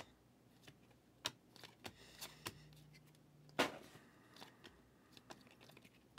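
A hand-held stack of glossy football trading cards being flipped through, each card slid off the front and tucked behind the rest: a string of faint, irregular clicks and rustles, with one louder, longer rustle a little past halfway.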